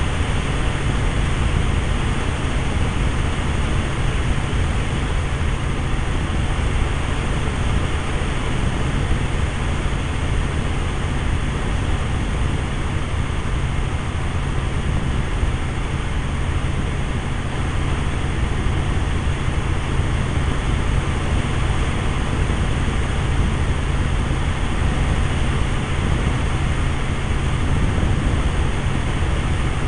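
Helicopter in steady cruise flight: continuous engine and rotor noise, heaviest in the low bass, with no change in level.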